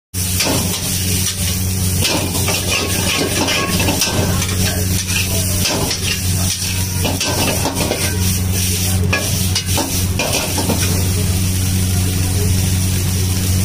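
Shredded cabbage and green vegetables sizzling in a hot iron wok while a metal spatula repeatedly scrapes and knocks against the pan, over a steady low hum.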